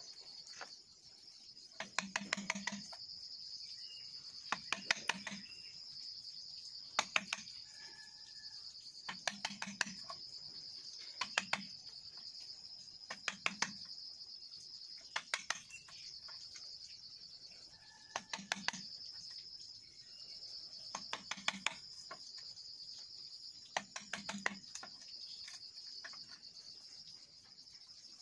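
A hand tool strikes bamboo poles in short bursts of several quick, sharp knocks, about every two to three seconds. Under it, insects keep up a steady high-pitched buzz.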